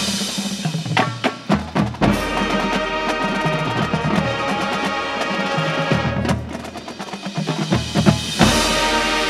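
Marching band with drumline and front-ensemble percussion playing a field show: sustained chords under clusters of sharp drum hits in the first two seconds and again about seven to eight seconds in, with a deep bass note coming in about two seconds in and again near the end.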